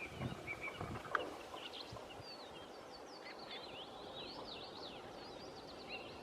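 Small songbirds twittering: a run of quick, high chirps and sweeping notes, busiest in the middle, over faint outdoor background noise.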